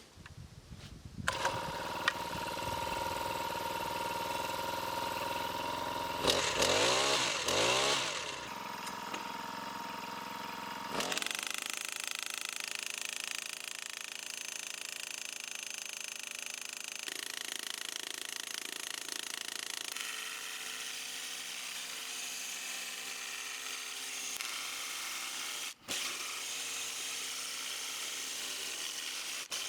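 Power tool cutting through a steel well pipe: a steady machine whine starts about a second in, its pitch dips and rises loudest a few seconds later, then it settles into a steadier, thinner running sound.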